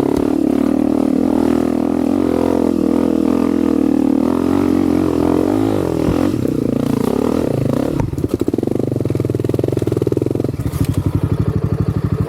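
Honda CRF250F's single-cylinder four-stroke dirt bike engine running on the throttle, its pitch rising and falling. About eight seconds in it drops to a slower, lumpy chug with clearly separate firing pulses.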